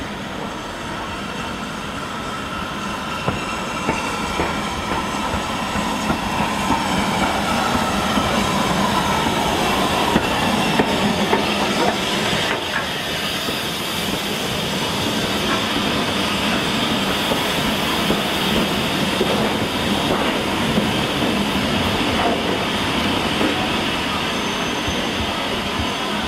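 BR Standard Class 4 tank locomotive 80146 and its coaches running slowly alongside the platform: a steady rumble of wheels with clicks over the rail joints and brief squeals, plus a hiss of steam. The sound grows louder over the first ten seconds as the train comes close, then holds steady.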